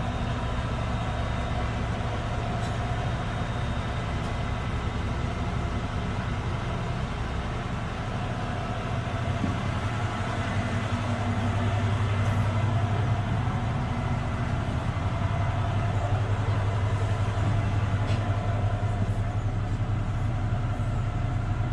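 Steady low drone of heavy diesel machinery running, growing louder about halfway through.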